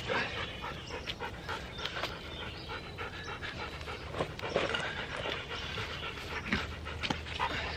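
Excited Siberian huskies panting, with scattered short rustles and knocks as they jostle close by.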